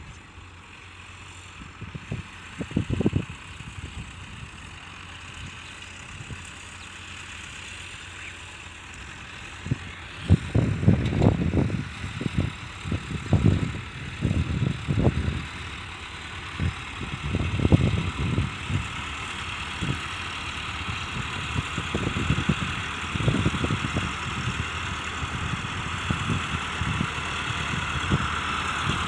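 Massey Ferguson 385 tractor's four-cylinder diesel engine running while it pulls a rear scraper blade through the soil, growing louder as it comes closer, with irregular low surges.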